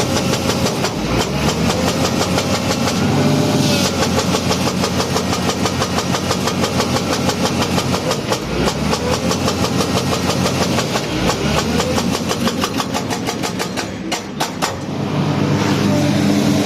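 Engine running with a rapid, even knocking in step with its rotation, the abnormal engine noise the owner is showing. The level dips briefly about fourteen seconds in, then comes back.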